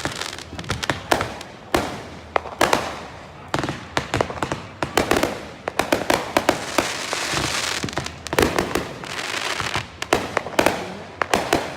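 Fireworks going off in a rapid series of sharp bangs, with stretches of dense crackling about halfway through and again later.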